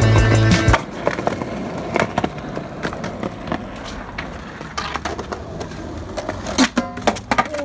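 Background music cuts off about a second in; then skateboard wheels roll over a concrete sidewalk with scattered clicks and knocks, and a louder clack near the end.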